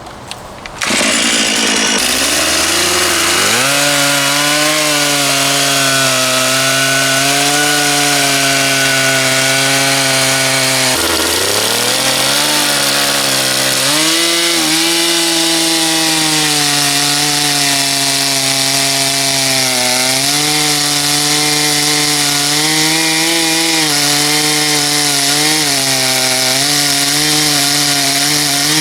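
STIHL MS 461 two-stroke chainsaw pulling a 36-inch bullnose bar. It comes up to speed about a second in, then runs steadily at full throttle while cutting wood. Its pitch sags under load around eleven seconds in and climbs back, with smaller dips later.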